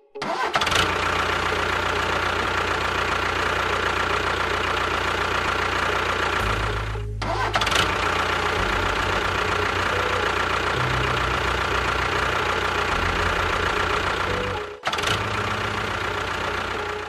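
A small motor running steadily under background music with a slow-changing bass line; the sound drops out briefly twice.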